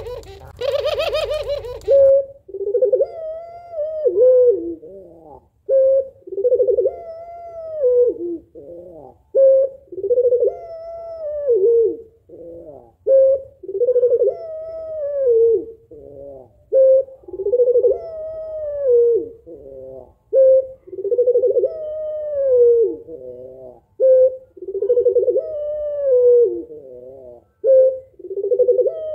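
Female puter pelung (Barbary dove) cooing over and over: a short note, then a long coo that rises and falls, repeated every three to four seconds. For the first two seconds there is a louder, harsher call with many overtones.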